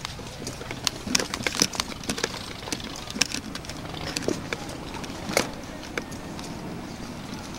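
Footsteps scuffing and knocking on rock and loose grit as people pick their way down a boulder slope: irregular sharp steps, several a second.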